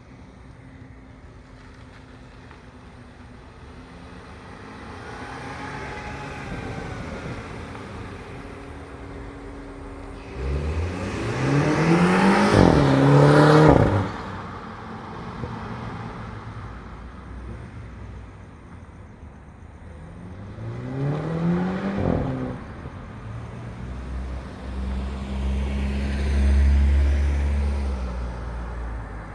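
2015 Mini Cooper S F56's stock 2.0-litre turbocharged four-cylinder accelerating hard: the revs climb, dip briefly at a gear change and climb again, then cut off sharply as the throttle is lifted. A second, shorter climb in revs ends the same sharp way, and a deep steady drone follows near the end.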